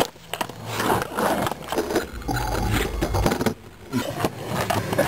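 Skateboard rolling and scraping on rough asphalt, with a few sharp knocks of the board.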